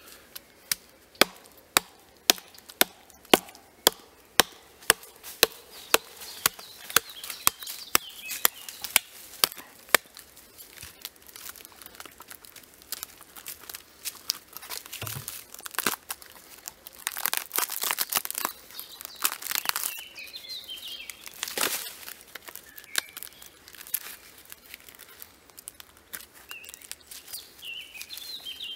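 A hatchet striking into a log in a steady run of sharp knocks, about two a second, for the first ten seconds or so. Then bark is torn and peeled off the log by hand in ragged tearing and crackling spells.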